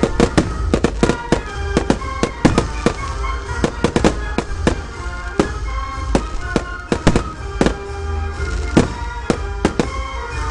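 Fireworks going off in a rapid run of bangs and crackles, packed closely in the first half and thinning out later, with music playing underneath.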